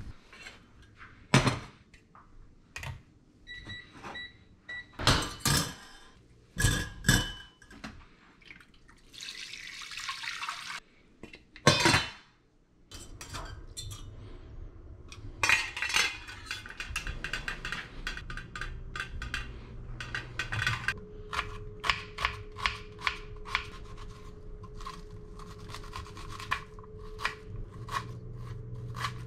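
A run of food-prep sounds: a plastic bag and beet leaves rustling, then a wire strainer basket clinking against a metal pot, then a knife chopping onion on a plastic cutting board in quick taps, about three to four a second.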